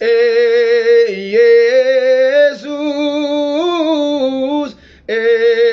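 A man singing an Amharic Protestant worship song (mezmur) solo, with no accompaniment heard, holding long notes that slide between pitches. There are short breaks for breath about two and a half seconds in and again near the end.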